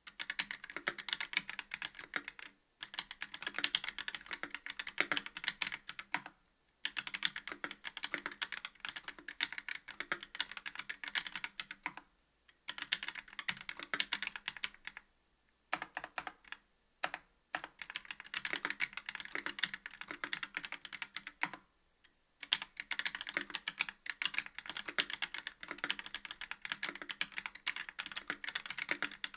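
Typing on a KBD67 V2 MKII mechanical keyboard with a brass plate, YOK Trash Panda linear switches and GMK keycaps: fast runs of key presses lasting several seconds, broken by brief pauses.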